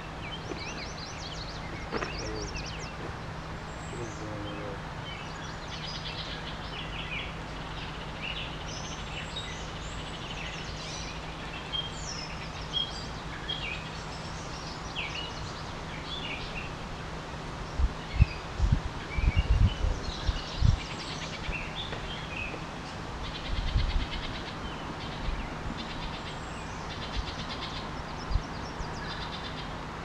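River water flowing steadily, with songbirds chirping and calling throughout. A cluster of brief low thumps comes a little past halfway.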